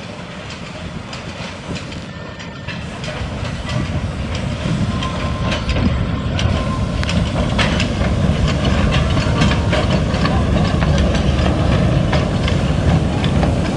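1907 Fowler 0-6-2T narrow-gauge steam locomotive with its passenger carriages approaching and running past, growing louder from about four seconds in. A low rumble is broken by many sharp clicks of wheels on rail.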